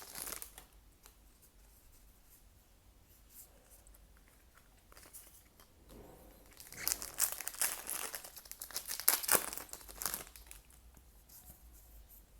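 Foil trading-card booster pack crinkling and being torn open, with a quiet stretch before a dense run of crackling and tearing from about six to ten seconds in.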